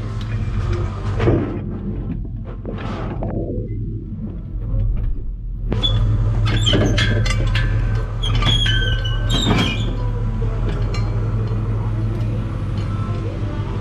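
Steady low drone of a vehicle running, with music over it; scattered higher tones and clicks come in about halfway.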